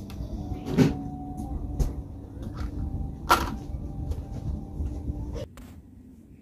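Knocks and clicks of a rubber fuel hose being forced by hand onto a new end fitting that is too large for it, with two sharp knocks about a second and about three seconds in and a fainter one between. A steady low drone runs underneath and cuts off near the end.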